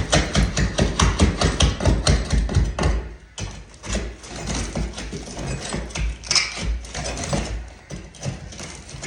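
Hand demolition of a plaster and lath wall: a rapid run of sharp knocks, about five or six a second, for roughly three seconds, then sparser, quieter knocks and clatter of tools and falling plaster.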